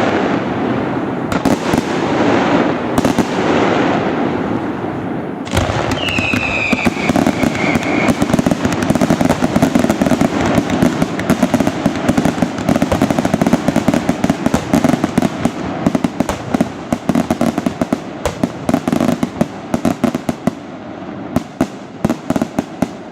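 Fireworks display: dense crackling and popping of bursting shells. A loud bang comes about five and a half seconds in, followed by a whistling tone that falls in pitch for about two seconds. The crackle thins to separate pops near the end.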